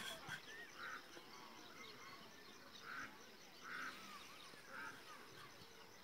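Faint farmyard animal calls: four short calls spaced a second or so apart, with small chirps of birds throughout.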